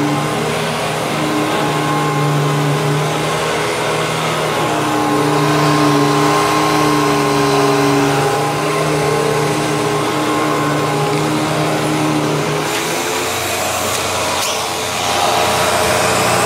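Hoover WindTunnel twin-chamber upright vacuum cleaner running on carpet. Its motor and brush roll make a steady hum whose pitch wavers as it is pushed back and forth, and the sound changes a little about three-quarters of the way through.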